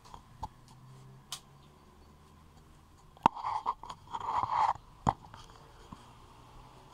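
Handling noise from a phone being moved and set up to record: a few sharp knocks on the microphone, the loudest a little after three seconds and another about five seconds in. Between them come two short bursts of rubbing and scraping.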